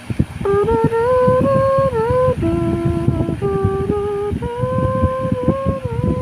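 A person humming a slow melody in held notes that step up and down, with low irregular knocks and handling noise underneath.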